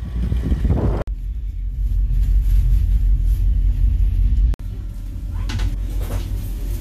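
A loud, steady low rumble that cuts out abruptly twice.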